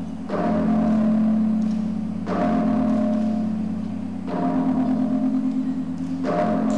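Slow ceremonial percussion music: a deep, ringing instrument struck four times, about two seconds apart, its tone wavering as it rings on between strokes.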